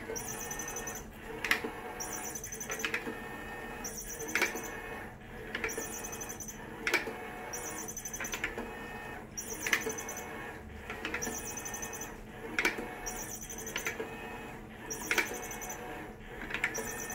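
A battery-powered motorized cat toy running: a steady motor whir with a sharp click about every second and a half, and a high hiss that switches on and off in the same rhythm.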